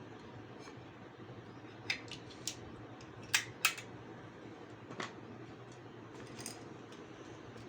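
Small hand tools clicking and snipping as a fibre optic cable is stripped and cut, about seven short sharp clicks, the loudest two in quick succession about three and a half seconds in, over a steady low hum.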